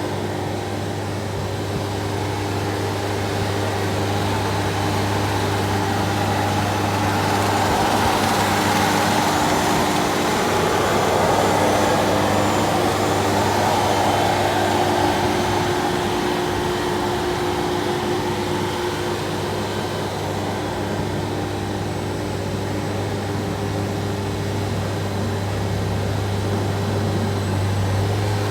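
Large remote-controlled concrete floor grinder running: a steady motor hum with grinding noise over it, growing somewhat louder in the middle and then easing back.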